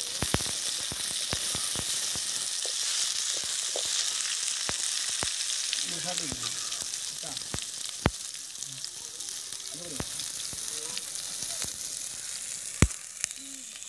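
Sliced small onions sizzling as they fry in an aluminium pan, with a metal spoon clicking and scraping against the pan as they are stirred. A sharper clink near the end.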